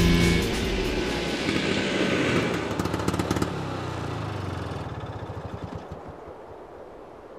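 A music cue ending about half a second in, followed by a noisy wash that fades out slowly over several seconds, with a patter of clicks near the middle.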